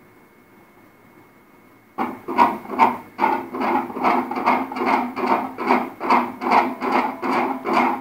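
Fetal heartbeat played through an ultrasound machine's Doppler speaker: a steady train of pulses, a little over two a second (about 143 beats a minute), starting about two seconds in.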